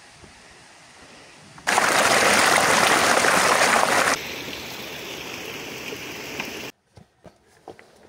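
Small rocky stream rushing and splashing over stones. It comes in loud and close about two seconds in, continues more softly after a cut, and stops abruptly near the end, leaving a few faint taps.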